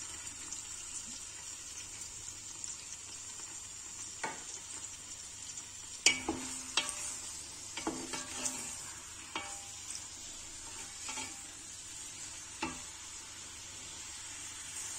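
Sliced onions sizzling steadily in hot oil in a pressure cooker, just after going in. A black slotted spatula stirs them and knocks against the pot about eight times from about four seconds in, some knocks ringing briefly.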